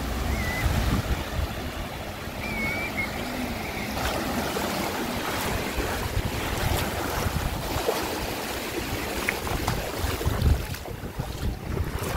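Sea surf washing onto a beach, a steady rushing wash, with wind gusting on the microphone.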